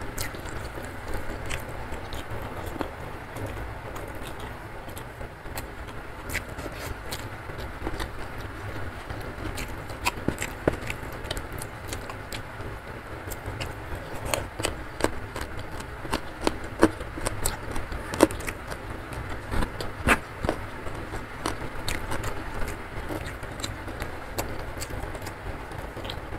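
Close-miked eating by hand: fingers working rice and sambal, with chewing and sharp crackly clicks that come thickest about halfway through, over a steady hiss of heavy rain.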